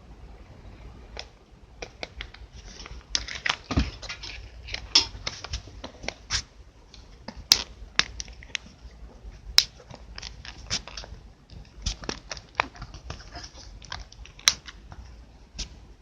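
Irregular plastic clicks, taps and scrapes from a Samsung Galaxy Note phone being handled: the back cover prised off and the battery taken out and snapped back in.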